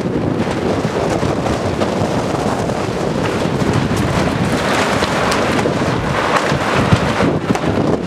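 Strong, gusty wind buffeting the microphone: a loud, continuous rush with uneven low rumbling surges.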